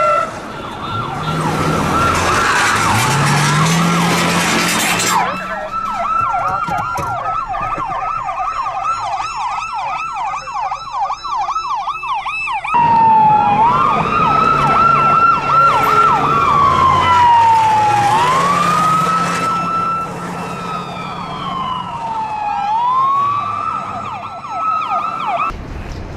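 Emergency vehicle siren running a fast yelp, sweeping up and down several times a second, that switches about halfway through to a slow wail rising and falling every few seconds. It cuts off just before the end. A vehicle engine and road noise are heard under it at the start.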